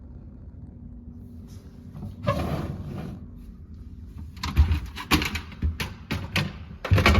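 Fisher & Paykel integrated refrigerator being opened and its fittings handled: a sliding swish about two seconds in, then a quick run of knocks and clatters.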